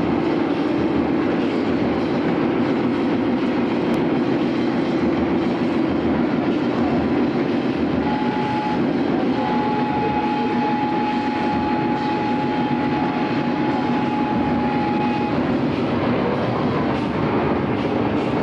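Steady rumble and clatter of a vehicle in motion. A thin, high, steady tone rings over it for several seconds in the middle.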